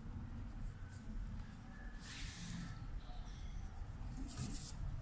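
White colored pencil scratching on paper in short strokes, most clearly about two seconds in and again near the end, over a steady low room hum.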